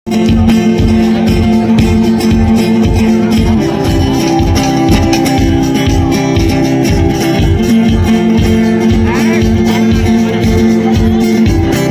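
Background music with a steady, fast beat and sustained chords.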